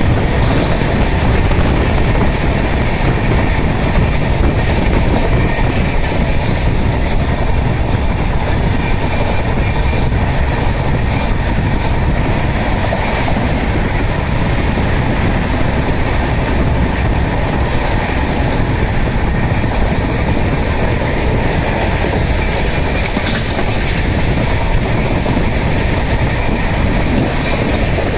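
Express passenger train running at speed, heard from inside an LHB coach by an open door or window: a steady, loud rumble of the coach wheels on the rails.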